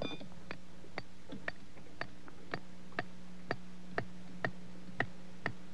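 Regular ticking, about two sharp ticks a second, over a steady low hum.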